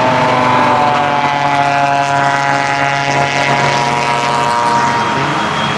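A pack of kei-class race cars driving past on the circuit, with several small engines running hard and their notes overlapping.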